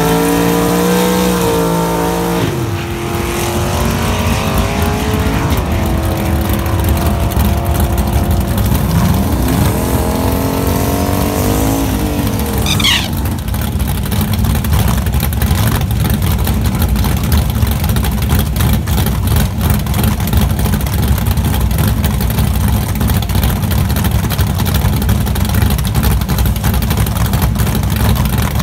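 Drag-racing car engines revving at the starting line, pitch rising and falling, then launching about 13 seconds in with a short high squeal and running hard down the strip, the engine noise staying loud and steady after that.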